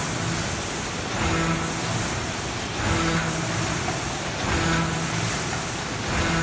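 Automatic pouch packing machine with a multihead weigher running. Its working cycle repeats about every 1.7 seconds, each cycle a short hum and a rise in level over a steady mechanical noise with a hiss.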